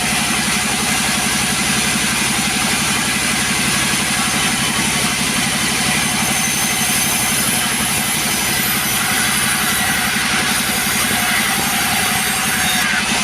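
Two-stroke chainsaw engine running steadily and loudly, without a break.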